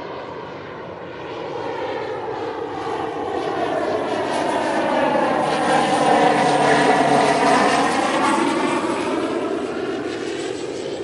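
An airplane passing overhead, its engine noise swelling to a peak about six to seven seconds in and then fading away.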